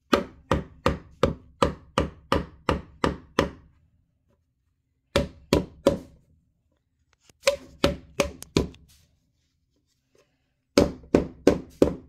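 Claw hammer knocking through a folded cloth on the wooden wall of a hive box, driving a tight dovetail joint together. A run of about ten blows at about three a second, then short bursts of three, five and four blows with pauses between.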